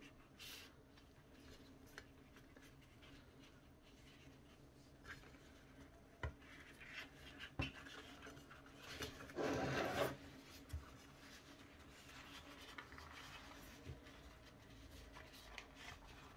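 Faint rustling and rubbing of thin lavash flatbread being folded by hand around a filling on a plate, with a few soft ticks. It grows louder for about a second around nine seconds in.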